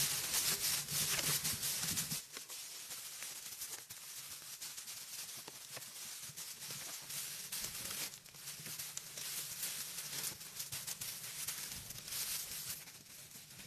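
Dry straw rustling and crackling as it is gathered and handled by hand, loudest in the first two seconds and again after about eight seconds.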